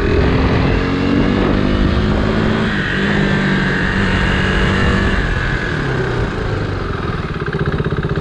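Motorcycle engine running and revving, its pitch rising and falling; it cuts off abruptly at the end.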